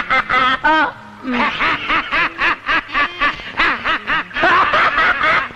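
A man laughing hard: a string of rapid, rhythmic ha-ha pulses, about three a second, after a short break about a second in.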